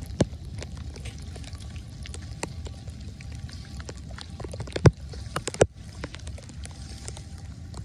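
Light rain on wet pavement by a street drain, with scattered tapping drips over a steady low rumble; a few sharper knocks stand out, one just after the start and two close together about five seconds in.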